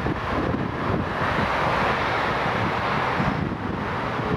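Airbus A330-300 airliner's Rolls-Royce Trent 700 turbofans running at taxi power as it rolls on the taxiway, a steady jet rush that swells in the middle, with wind buffeting the microphone.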